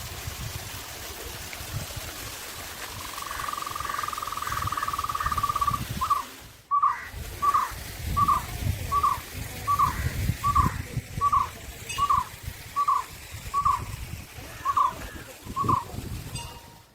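A bird calling over the steady rush of flowing water: a held trill for about three seconds, then a dozen or so short notes repeated evenly, a little over one a second.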